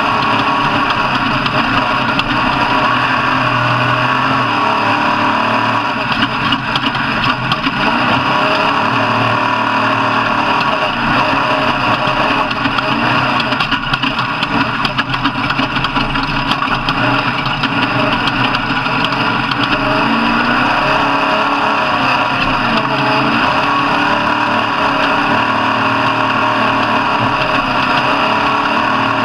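Motor vehicle engines running steadily, a dense, unbroken engine drone with no pauses.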